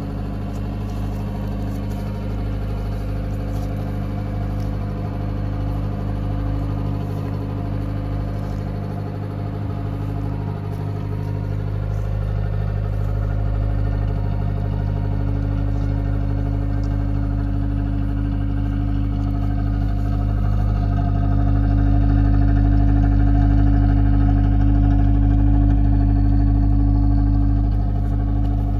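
1972 Datsun 521 pickup's four-cylinder engine idling steadily, growing louder about two-thirds of the way through as the rear of the truck is neared.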